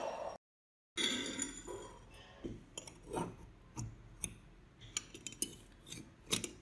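Steel parts of a pair of restored metal snips clinking and scraping together as the handles are fitted back onto the jaws by hand: a string of light metal clicks and taps.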